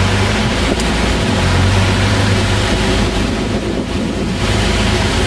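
Vehicle engine running steadily while driving on a dirt track, a low hum under a steady rushing noise of wind and tyres.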